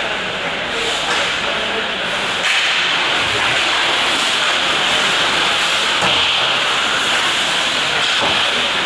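Ice hockey rink noise: a steady hiss of skate blades scraping the ice over the rink's background, with players' voices, and a knock about eight seconds in as play reaches the net.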